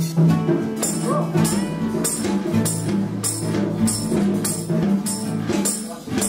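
A band playing on drum kit and electric guitar: cymbal and drum strokes land about twice a second over the guitar's sustained low notes.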